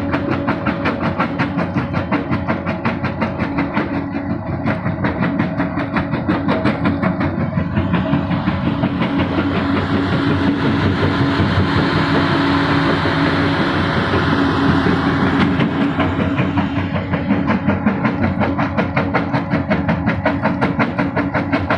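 Hydraulic excavator running with a jaw crusher bucket at work: a fast, steady clatter of stone being crushed over the drone of the engine and hydraulics. In the middle a louder rushing noise from the engine comes up for several seconds, then drops back.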